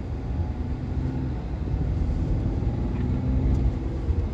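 BMW X5 driving, heard from inside the cabin: a steady low engine and road rumble, the engine note climbing slightly in the second half.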